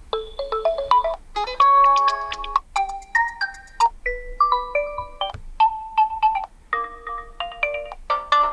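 Realme C30 smartphone's built-in alarm tones: several different short melodic tones played one after another, each cut off after a second or two as the next begins.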